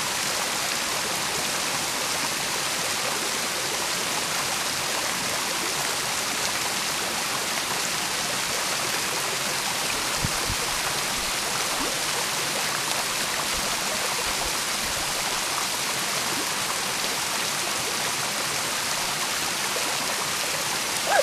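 Small waterfall running down a steep rock face into a shallow pool: a steady, unbroken rush of falling water.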